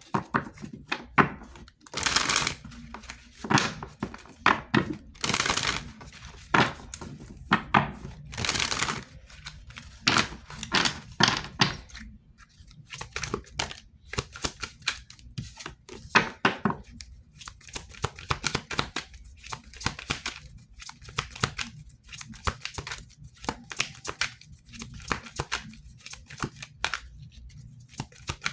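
Tarot cards being shuffled and handled: several longer swishing riffles in the first ten seconds, then many quick card clicks and slaps.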